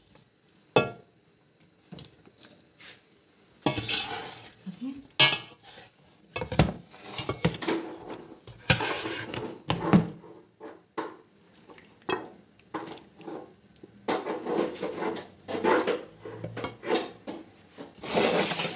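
Plastic ladle scraping and knocking against the inside of a nonstick cooking pot as pieces of braised beef tongue in sauce are scooped out, giving irregular clicks and scrapes.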